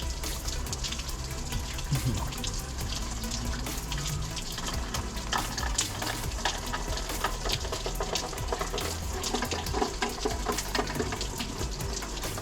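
Running creek water, a steady rushing, with many small clicks and crackles scattered through it.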